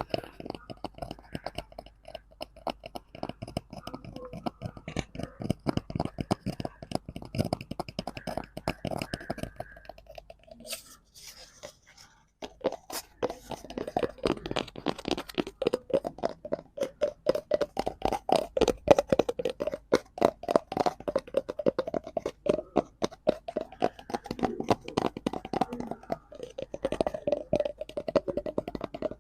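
Fingers tapping and scratching rapidly on a cardboard prop, many quick strokes a second, with a brief pause about eleven seconds in.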